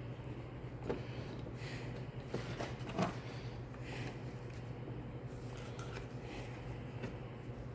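Light clicks and taps of small parts being handled while a chainsaw recoil starter is reassembled, the loudest about three seconds in, over a steady low hum.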